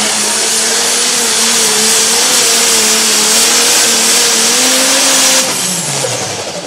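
Farmall pro stock pulling tractor's turbocharged diesel engine running flat out under load against the sled, a steady high engine note over a loud hiss. About five and a half seconds in the throttle is cut at the end of the pull and the engine note falls away sharply.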